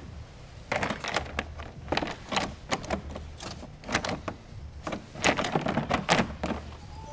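Irregular clusters of quick clicks and light knocks, as the snowmobile's plastic hood and side panels are handled, starting about a second in.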